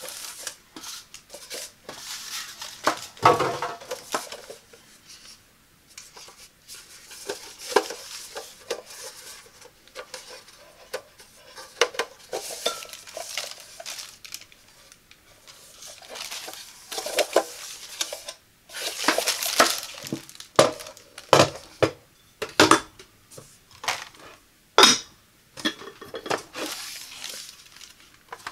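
Hands handling a small Elite Gourmet MST-250XS slow cooker: the stainless steel housing is knocked and turned, then the ceramic crock and lid are set in place. This gives irregular clinks, knocks and brief scrapes of metal and ceramic, with the sharpest knocks about three seconds in and near the end.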